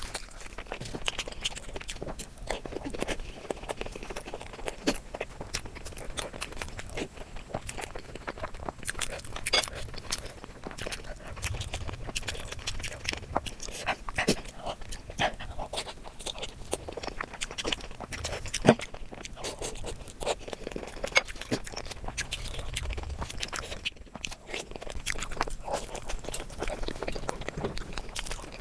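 Close-miked eating: a person chewing and biting, with irregular crunches, wet clicks and crackles of food in the mouth, and one sharper click about two-thirds through.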